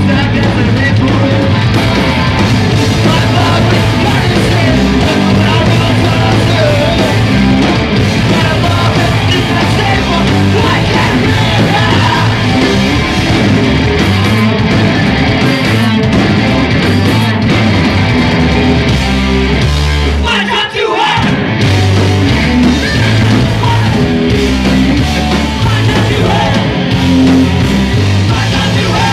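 Rock band playing live and loud: electric guitars, bass guitar and drums, with yelled vocals. The band cuts out for a moment about two-thirds of the way through, then comes back in.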